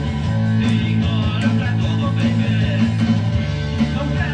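Rock music with electric guitar and a steady beat, a band's recorded song playing.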